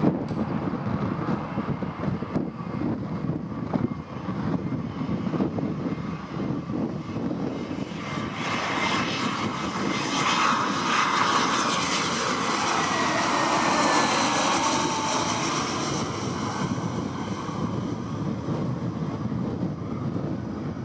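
Twin-engine jet airliner on landing approach passing close by: its engine sound swells from about eight seconds in, peaks around the middle with a whine that falls in pitch as it goes past, then fades.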